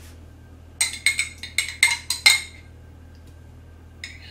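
Metal spoon clinking against a glass jar of tomato sauce, a quick run of about eight ringing taps over a second and a half as the sauce is scooped and knocked off the spoon. One fainter tap follows near the end.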